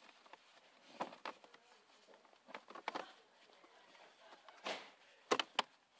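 Cabin air filter and its plastic housing being handled: scattered light knocks and scrapes, a short rustle about three-quarters through, then a few sharp clicks near the end.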